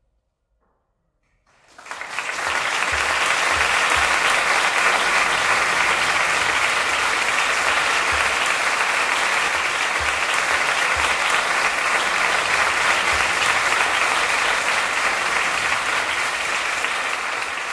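An audience breaks into steady applause about a second and a half in, after a brief near silence.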